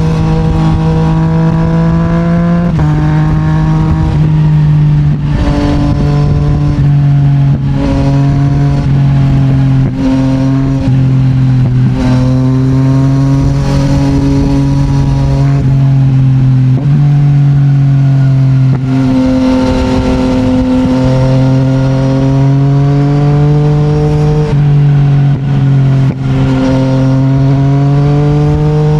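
Yamaha MT-09's 890 cc three-cylinder engine running through an Akrapovic full titanium exhaust on the move. Its note holds steady for stretches and drops in steps several times, with short dips in loudness, as the bike changes gear.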